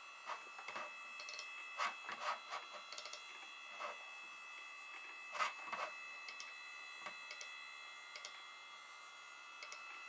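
Irregular mouse clicks and key taps on an iMac G3, some in quick pairs, over the steady high whine of the running computer.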